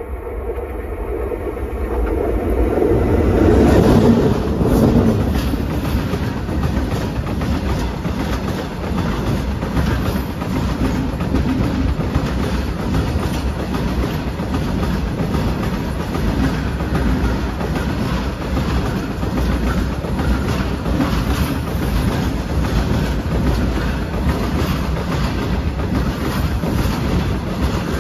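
A train running directly over a microphone lying between the rails: it grows louder as the locomotive reaches and passes over, loudest about four seconds in, then settles into a steady rumble and rattle of the cars' wheels on the track with rapid clickety-clack.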